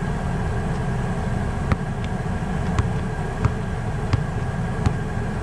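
Basketball dribbled on an outdoor asphalt court: sharp bounces about every two-thirds of a second, starting about a second and a half in, over a steady low rumble.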